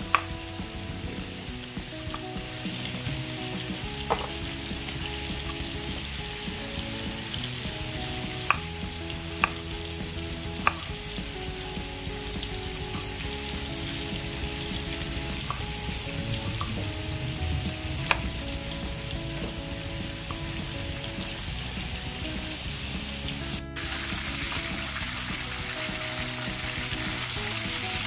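Marinated pork steak frying in oil in a wok, a steady sizzle, under light background music with a melody. A few sharp knife taps sound on a wooden cutting board as an onion is sliced. The sizzle gets louder about three quarters of the way in.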